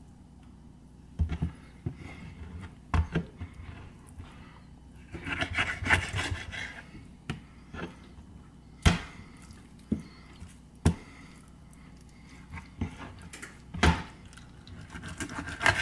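Raw chicken leg quarter and a kitchen knife being handled on a plastic cutting board: about five sharp knocks as they are set down and moved, with a scratchy rubbing stretch about five to seven seconds in.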